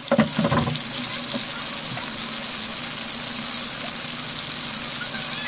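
Battered fish fillets deep-frying in hot oil in a wok: a steady sizzling hiss, with a short louder sound just after the start.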